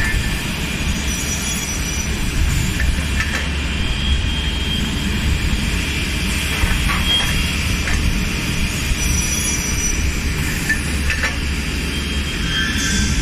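HC3300 PC2S CNC beam saw running: a steady, loud machine noise with a heavy low rumble and a faint high whine, with a few faint ticks along the way.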